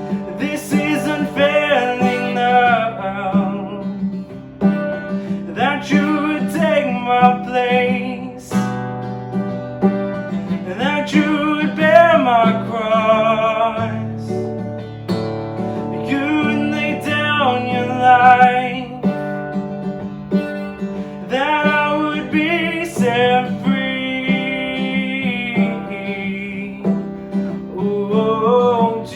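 Worship music: a band playing with guitar while a singer sings phrases a few seconds long, each followed by a short gap.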